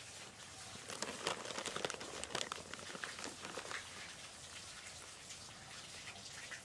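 Plastic bag crinkling and rustling as cat food is handled in it, a dense scatter of small crackles and clicks, busiest in the first few seconds.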